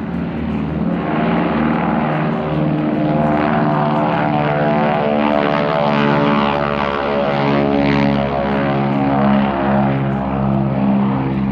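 Ford Tri-Motor's three radial engines at takeoff power, a loud steady propeller drone made of many overlapping tones that builds about a second in.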